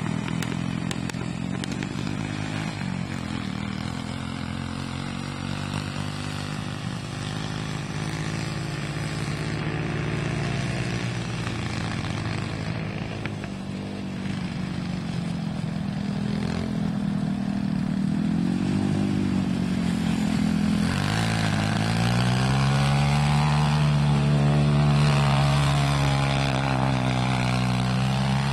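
A small off-road vehicle's engine running and revving as it rides over dirt, its pitch rising and falling with the throttle. About three quarters of the way through it climbs to its highest and loudest revs and holds there for a few seconds.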